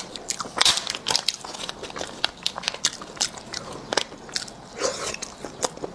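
A small plastic snack pouch crinkling and tearing as it is opened by hand and a small roasted egg is squeezed out, a run of small crackles and clicks.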